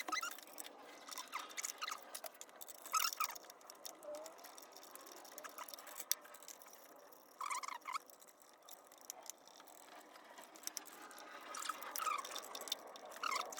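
Faint, scattered clicks and light clinks of hand tools and engine parts being handled during engine disassembly, with a few short squeaks in between.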